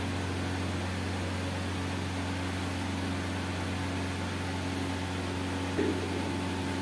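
Steady low electrical hum with a fan-like hiss from equipment left running, with no welding arc struck.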